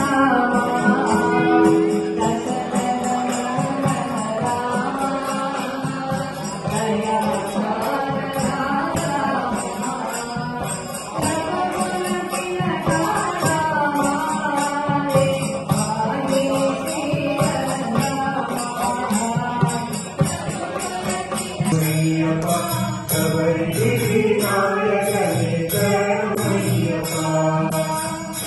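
Ayyappan devotional bhajan: voices chanting a repeating melody over jingling hand percussion that keeps a steady beat. About two-thirds of the way through, the melody moves to a lower pitch.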